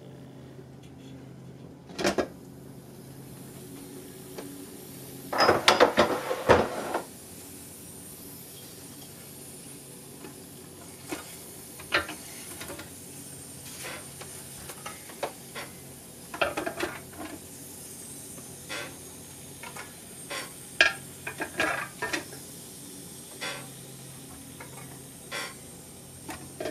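Metal pressure-canner lid being worked off the pot, with a loud metallic clatter about five to seven seconds in. It is followed by scattered clinks of glass canning jars and a metal jar lifter as the hot jars are lifted out one by one, over a faint steady hiss.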